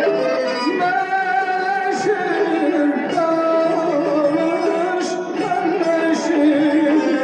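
Azerbaijani mugham-style singing: a male voice holds long wavering, ornamented notes over instrumental accompaniment.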